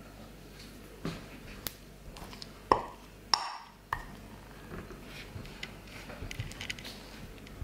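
Metal spoon clinking and scraping against a ceramic bowl while stirring a sticky mix of melted gummy bears and cornstarch: a handful of sharp clinks, the loudest about two and a half seconds in.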